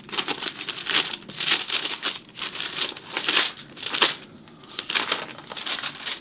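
Thin Bible pages being leafed through by hand, rustling as they turn one after another, about two turns a second.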